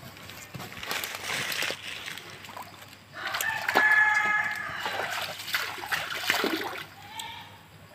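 Water splashing as a person wades into a shallow pond, with a long, pitched bird call starting about three seconds in that is the loudest sound.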